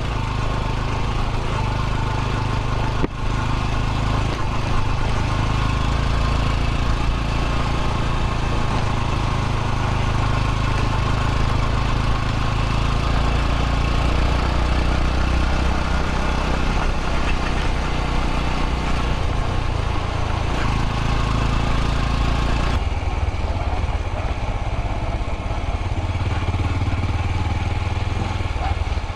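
Small single-cylinder four-stroke motorcycle engine running steadily under way, with a loud hiss over it. About 23 seconds in the hiss drops away suddenly and the engine goes on.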